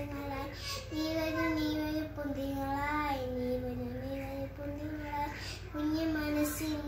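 A young girl singing solo and unaccompanied, holding long notes that step up and down in pitch.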